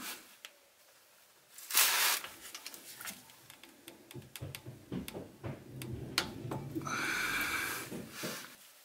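Click-type torque wrench and socket being handled on a rear differential drain plug after it has been torqued: a short burst of noise about two seconds in, then scattered light metallic clicks and knocks, and a longer rasping noise near the end as the wrench and socket come off the plug.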